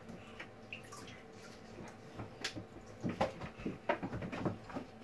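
A young Java macaque scrambling and leaping about a bathtub edge and wall: a quiet stretch, then from about three seconds in a flurry of irregular knocks and taps from its hands and feet.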